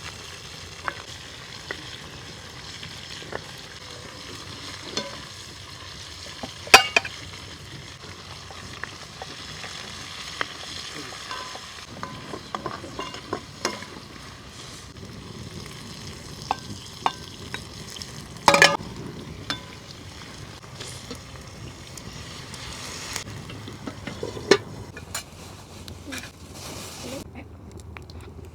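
Food frying and sizzling in a pan while a utensil stirs it, with scattered sharp knocks of the utensil; the loudest knocks come about seven seconds in and again after eighteen seconds.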